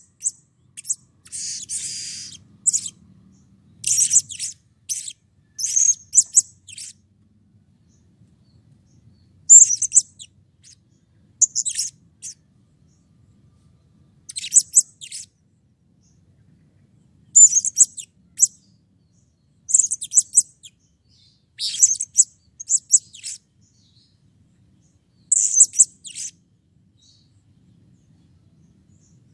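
Blue-crowned hanging parrot (serindit) giving shrill, very high-pitched chirps in short rapid bursts every couple of seconds, falling quiet a few seconds before the end.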